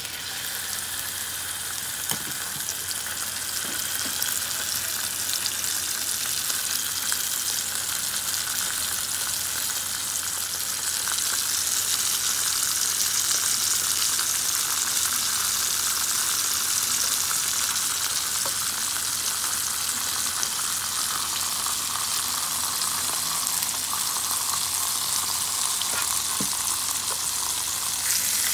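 Marbled Sendai beef (wagyu) steak sizzling in oil on an electric hot plate alongside garlic cloves: a steady frying sizzle that starts as the meat goes down and swells over the first several seconds, then holds, with a few faint ticks.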